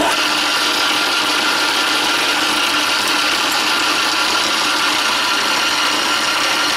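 Small metal lathe running at a steady speed, a constant motor whine over a broad hiss, as the tool turns a diameter on a scrap metal workpiece.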